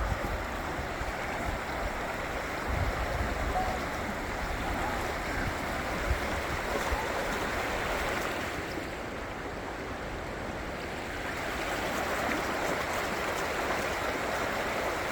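Steady rush of a mountain trout river's flowing water, with a few low thumps in the first few seconds.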